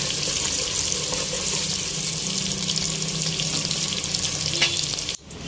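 Chopped onions frying in hot oil in a large aluminium pot, a steady sizzle as they cook to golden brown. It cuts off abruptly near the end.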